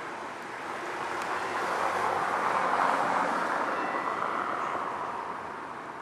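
A vehicle passing by: an unpitched noise that builds to its loudest about halfway through, then fades away.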